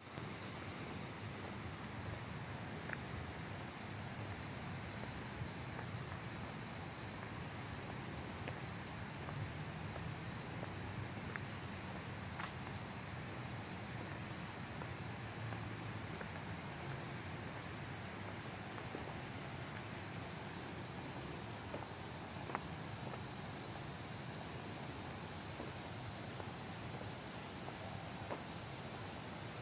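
A chorus of insects holding one steady, high-pitched trill without a break, over a soft hiss of background noise with a few faint ticks.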